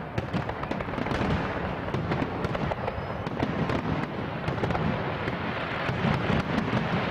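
Fireworks aerial shells bursting in a dense barrage: many overlapping bangs and crackles, one after another with no pause.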